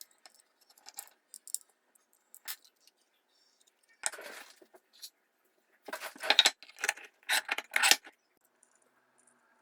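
Small hard parts clicking and rattling as they are handled, with scattered light clicks and a run of louder clattering strokes about six to eight seconds in.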